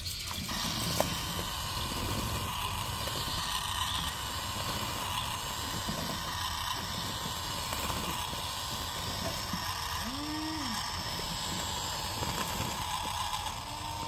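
Radio-controlled toy bulldozer's small electric motors and gearbox whining steadily, with the tracks rattling as it crawls forward pushing loose soil with its blade.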